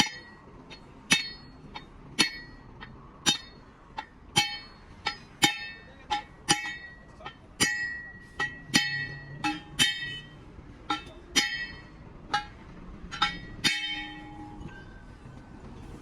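Hammer blows on steel, repeated unevenly at about two a second, each strike ringing with a clear metallic tone. The strikes stop about two seconds before the end.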